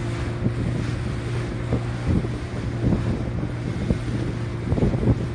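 An engine running steadily with a constant low hum, while wind gusts on the microphone with irregular low buffeting thumps.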